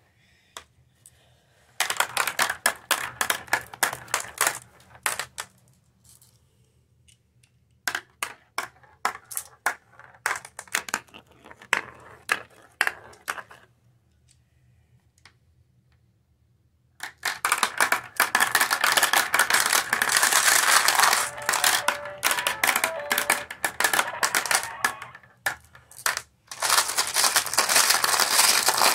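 Glass marbles clattering down a plastic marble run's ramps and spiral funnels: several bursts of fast, overlapping clicks and rattles, with short lulls between runs.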